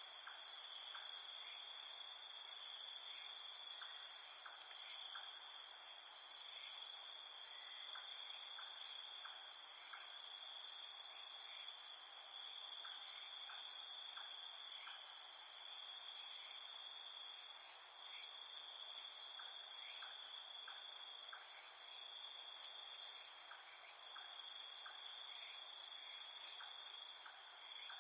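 Steady chorus of crickets and other insects, a continuous high trill that holds level throughout, with short lower chirps sounding here and there.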